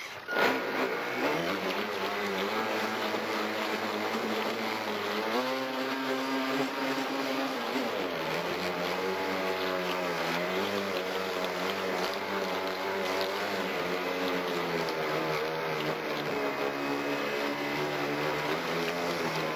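Electric 590 motor of an RC speedboat running on a 4S LiPo, heard from on board, with a whine that rises and falls in pitch as the throttle changes and jumps higher for a couple of seconds about five seconds in. The hiss of water rushing along the hull runs underneath.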